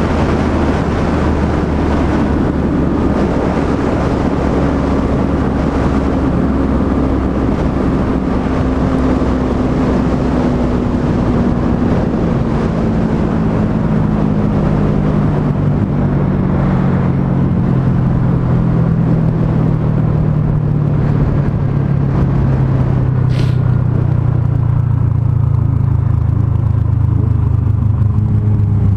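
Yamaha MT-03's parallel-twin engine running under way with wind rush, its revs falling slowly and steadily, as when rolling off the throttle and slowing down.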